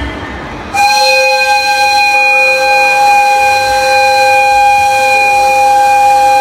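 An EF55 electric locomotive's whistle sounds one long steady blast of two clear notes, starting suddenly about a second in.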